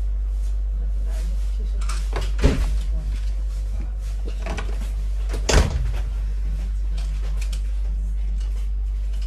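Class 323 electric train running, heard inside the carriage as a steady low rumble. Two loud knocks stand out, about two and a half and five and a half seconds in.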